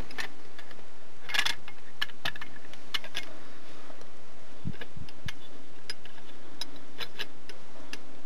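Irregular metallic clicks and clinks from a C-frame valve spring compressor being handled and repositioned against a cylinder head, with a short rattling cluster about a second and a half in and a couple of duller knocks near the middle.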